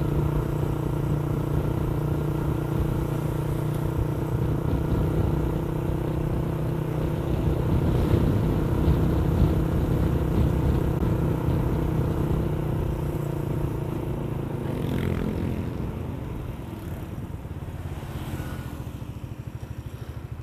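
Motorcycle engine running steadily while riding, then easing off in the last several seconds as the bike slows.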